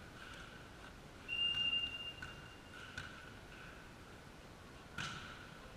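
Volleyball referee's whistle: one steady blast about a second and a half long, starting just over a second in. A sharp smack follows about five seconds in.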